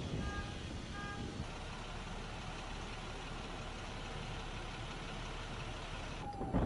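Steady rushing noise, with two short electronic beeps about 0.7 s apart in the first second and a half. The noise changes abruptly near the end.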